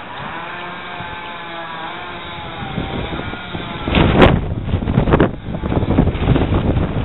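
The engine of a motorised boat trailer running, its pitch rising briefly near the start and then holding steady. From about four seconds in, loud gusts of wind buffet the microphone and largely cover it.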